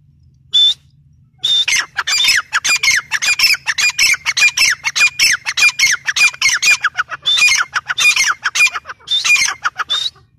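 Gray francolin calling: one short note, then a long, fast run of loud, harsh repeated notes, each sliding down in pitch, several a second, breaking off just before the end.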